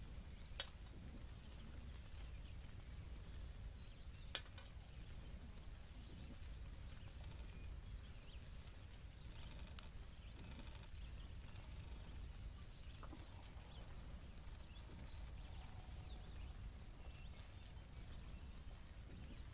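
Quiet hand-peeling of potatoes with small knives: faint scraping and a few sharp clicks, over a low steady rumble, with faint bird chirps twice.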